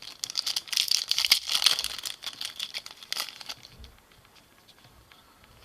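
Crinkling and rustling from trading-card packs and cards being handled, a dense crackle for about three and a half seconds that then drops to faint handling noise.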